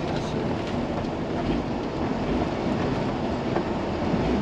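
Four-wheeling truck rolling over snow, heard from inside the cab: a steady rumble of engine and tyres with the body clattering over the rough ground.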